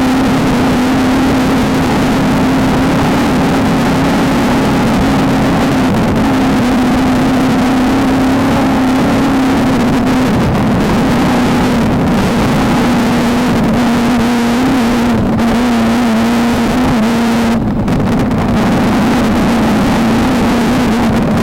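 Off-road race car's engine running hard at steady revs under heavy wind and rattle at race speed, with a brief easing about three-quarters of the way through.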